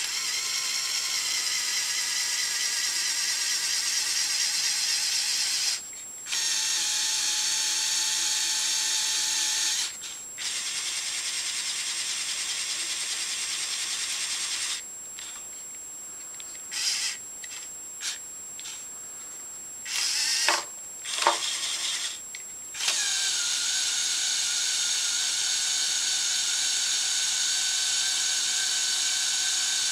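LEGO Technic 8043 motorised excavator's electric motors whining as they drive the boom, stick and bucket through its gear trains. Three long runs with brief pauses, then a string of short bursts as the remote buttons are tapped, then a steady run near the end.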